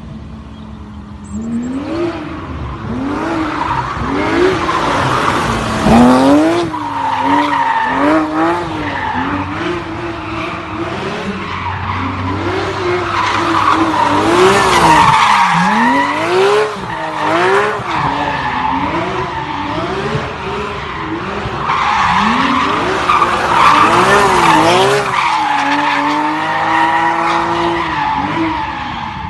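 Porsche engine revving hard, its note rising and falling over and over as the car drifts. Three long stretches of tyre squeal come in with it.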